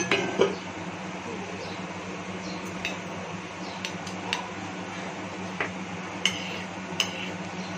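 A steel spoon clinks lightly and sparingly against a small steel bowl as cooked bottle gourd is spooned in and pressed down, over a steady background hum.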